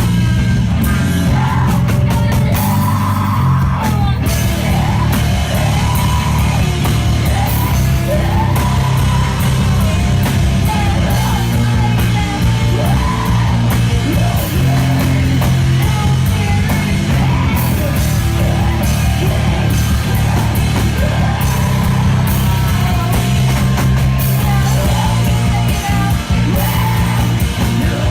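Rock band playing live and loud, with a vocalist yelling and singing over the band.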